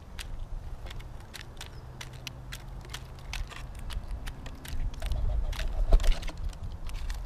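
Common starling pecking at mealworms and seed in a plastic feeder tray close to the microphone: irregular sharp beak clicks and taps, several a second, the loudest about six seconds in. A low rumble rises under the clicks in the second half.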